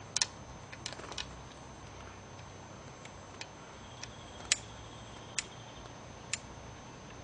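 Small irregular metal clicks and ticks as the lower fill plug screw and its washer are fitted and threaded by hand into the drain hole of a MerCruiser Alpha One sterndrive lower unit. The sharpest click comes about four and a half seconds in.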